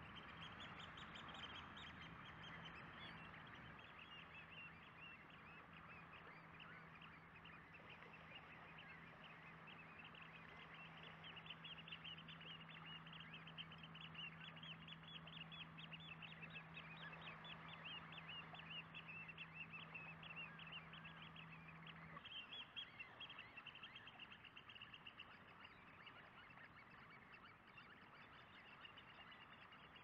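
Faint, dense chatter of many birds calling together, a flock of short calls overlapping throughout. A low steady hum underneath stops abruptly about three-quarters of the way through.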